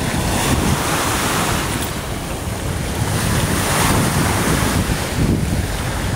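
Small lake waves washing in over sand and pebbles at the water's edge, with wind buffeting the microphone.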